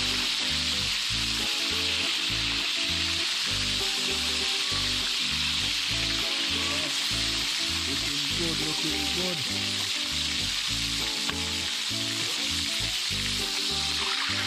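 Halved spiny lobsters sizzling as they fry in hot oil in a pan, a steady, dense crackling hiss. Background music with a steady beat plays under it.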